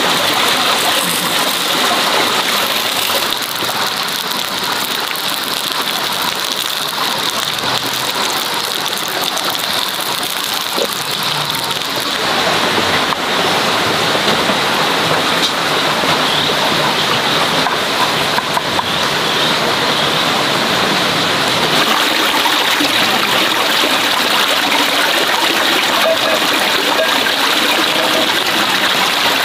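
Homemade pork sausages sizzling in hot fat in a frying pan: a steady, dense hiss with light crackling throughout.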